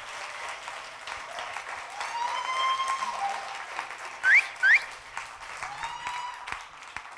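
Audience applauding at the end of a talk, with a few held whoops and two sharp rising whistles about four seconds in, which are the loudest sounds. The applause fades near the end.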